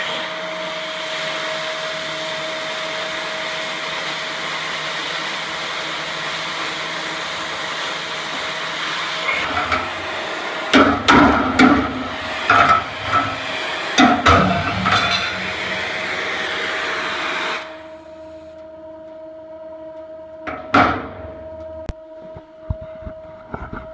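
A cutting torch hissing steadily as it blows a hole through the steel top shelf of a metal cart, cutting off suddenly about two thirds of the way in. A run of loud metal clanks and knocks comes about ten to fifteen seconds in, and a single clank a few seconds after the hiss stops.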